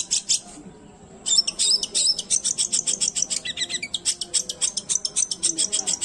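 Long-tailed shrike (cendet) singing: a fast string of sharp, high repeated notes, about eight a second. The song breaks off about half a second in and resumes about a second later with a more varied run.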